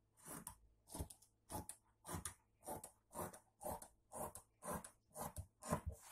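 Orange-handled tailoring scissors cutting through folded layers of cloth in a steady run of crunchy snips, about two a second.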